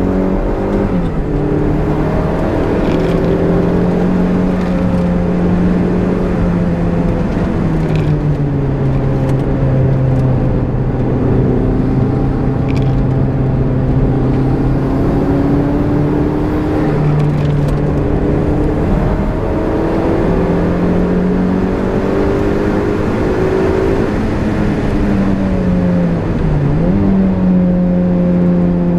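Turbocharged Toyota MR-S 1.8-litre four-cylinder engine running hard on track, heard from inside the cabin. Its pitch holds high, falls to a lower steady note for several seconds mid-way, climbs back up and dips briefly near the end.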